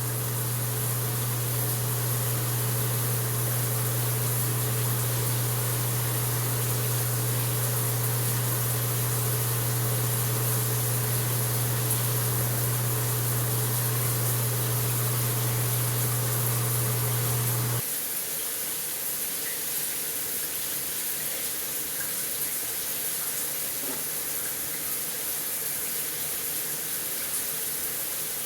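Shower water running steadily, a full even spray hiss. Underneath, a low steady hum with a faint higher tone stops suddenly about two-thirds of the way through, leaving the water alone.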